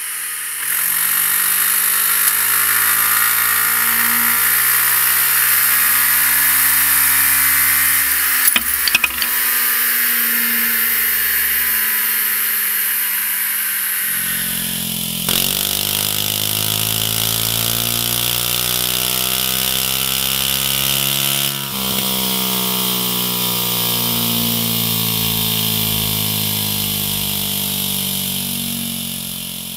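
Suzuki Burgman 400 scooter's single-cylinder engine on a chassis dyno, revving in long runs with its pitch climbing slowly, over a steady high hiss. The first part is through the stock silencer and the second, after an abrupt change about halfway, through an MIVV Oval slip-on muffler. A few sharp clicks come about eight and a half seconds in.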